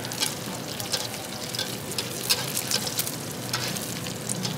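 Thai omelette with surf clam frying in hot oil in a black wok, a steady sizzle. The metal spatula scrapes and taps against the wok at irregular intervals as the egg is pushed around.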